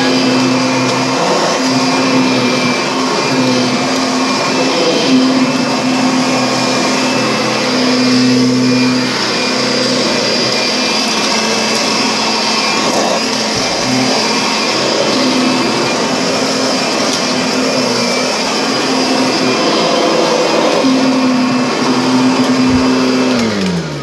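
Upright vacuum cleaner running on carpet, a steady motor hum under the rush of air. Near the end the motor is switched off and its pitch falls as it spins down.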